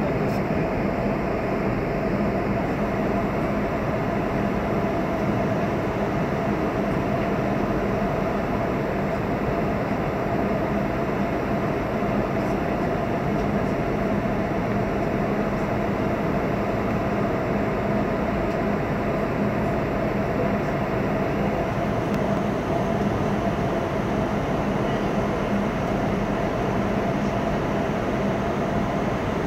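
Steady jet airliner cabin noise during the descent: a constant rumble of engines and airflow, with a low hum and a higher steady tone running through it.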